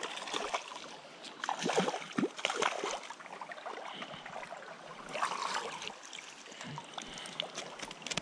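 Hooked trout splashing at the surface of a shallow creek as it is reeled in and netted, in irregular bursts of splashing over the steady sound of flowing water.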